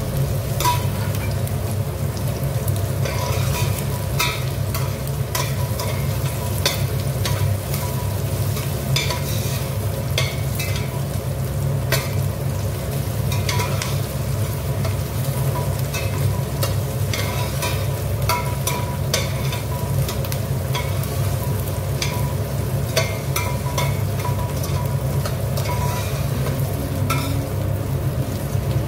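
Chicken pieces and sliced onion sautéing in a stainless steel pot, sizzling, while a utensil stirs and scrapes around the pot with frequent clicks and taps against the metal. A steady low hum runs underneath.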